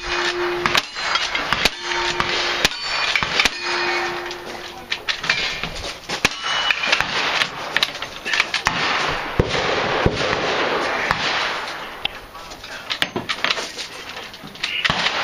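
A fast string of gunshots from a cowboy action shooter's rifle and shotgun, shots coming close together throughout. In the first five seconds three of the hits are followed by a short ringing tone from struck steel targets.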